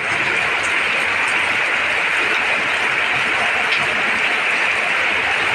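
Heavy rain pouring down, a steady, even hiss with no letup.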